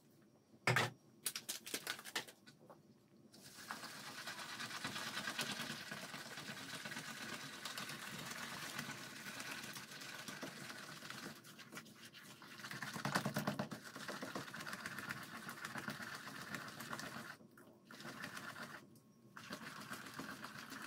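Pancake batter being whisked briskly by hand in a plastic mixing bowl: a fast, even tapping and sloshing that starts a few seconds in and stops briefly twice near the end. A few sharp knocks near the start as the metal ladle works the flour into the bowl.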